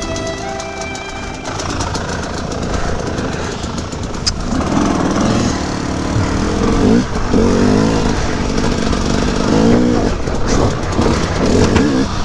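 KTM 250 EXC two-stroke dirt bike engine, running steadily at first, then revved hard as it is ridden. From about four seconds in its pitch climbs and drops again and again with each burst of throttle.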